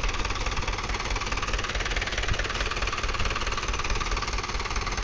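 Diesel tractor engine running steadily at low revs.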